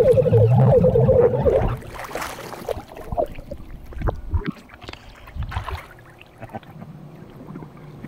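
Handheld air horn sounded underwater: a gurgly, wavering horn tone muffled by the water, which cuts off about two seconds in. Quieter water splashing and sloshing follow.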